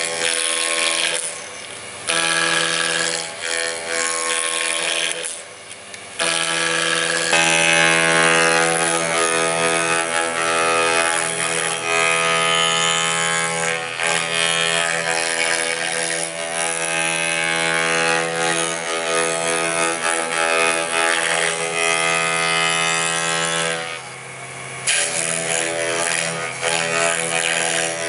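CNC milling machine's spindle running with a steady whine while its end mill cuts into a block of bubinga hardwood, with a hiss of cutting on top. The cutting noise drops away briefly a few times, then comes back.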